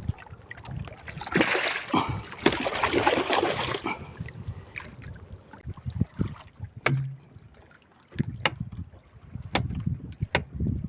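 Water splashing and sloshing around a small fishing boat, with wind on the microphone and a low rumble, then a few sharp knocks or clicks in the second half.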